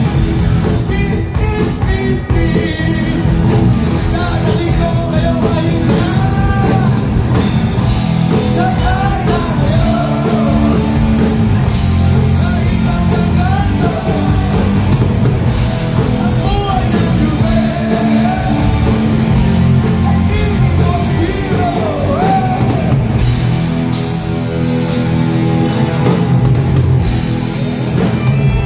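Rock band playing loudly: drum kit, bass and electric guitar, with a lead melody that bends and wavers in pitch over the steady accompaniment.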